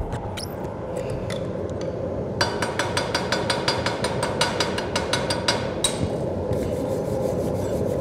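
Chipping hammer rapidly tapping a fresh weld bead on a cast iron casting, knocking off slag and peening the weld to relieve its stresses. A quick run of sharp metallic taps starts about two and a half seconds in and stops about six seconds in, with a few scattered taps after, over a steady rushing noise.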